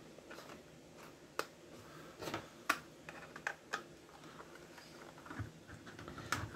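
Quiet clicks and creaks of a plastic ghost figure's shell being pried and twisted apart by hand, with about five sharper snaps scattered through it.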